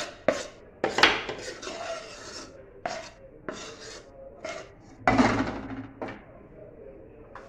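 A spoon scraping cooked besan mixture of chickpea flour and ghee off the sides of a metal pan into a glass dish, in about ten short rasping scrapes. The longest and loudest scrape comes about five seconds in, and the scraping stops about six seconds in.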